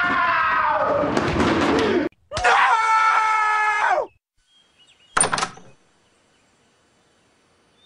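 A person screaming in two long outbursts, the second cut off abruptly about four seconds in. A short sharp knock follows about a second later, then near silence.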